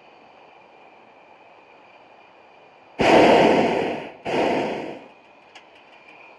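Hot air balloon's propane burner fired in two blasts about three seconds in, the first a little over a second long, the second shorter after a brief break, to slow the balloon's descent.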